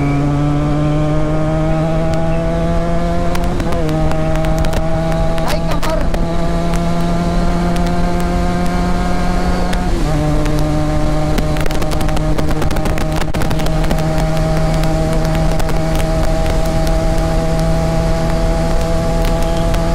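Benelli 300 motorcycle with an aftermarket SC Project exhaust pulling hard under acceleration, its engine note climbing gradually through the gears. The pitch drops and climbs again at each upshift, about 4 seconds and 10 seconds in.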